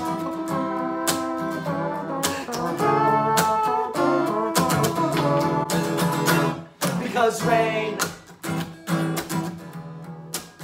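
Acoustic guitar strummed in a steady rhythm, with men's voices singing over it at times.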